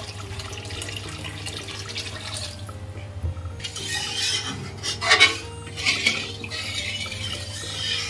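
Water poured from a glass into a steel kadhai of cooked masala gravy, then a spatula stirring and scraping around the pan in irregular strokes, loudest about five seconds in.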